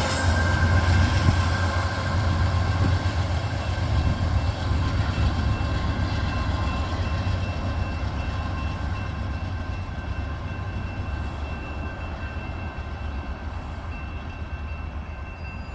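Coal train rolling by with a steady low rumble, fading gradually as it moves away. Faint thin high tones ring over the rumble.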